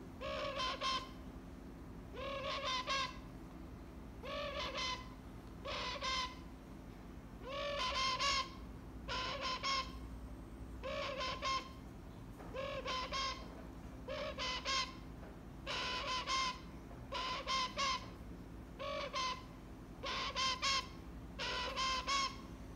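Young keel-billed toucan calling over and over: short, croaking calls, often in pairs, coming about one to two a second.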